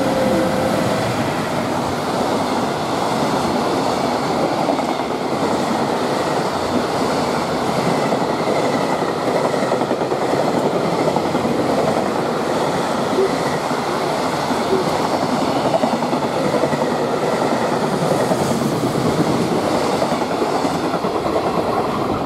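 A long container freight train hauled by an EF210 electric locomotive passing close by at speed: a steady, loud running noise of wagon wheels on the rails as the container wagons go by.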